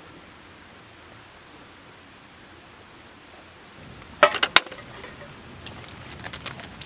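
Steady hiss of rain, broken about four seconds in by two sharp clacks in quick succession. After them the rain is a little louder, with scattered drips tapping.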